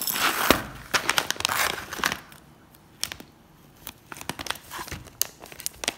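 Whole roasted coffee beans poured from a foil-lined paper coffee bag onto a ceramic saucer: the bag crinkles at first, then a quick run of beans clicking onto the plate, thinning to scattered clicks.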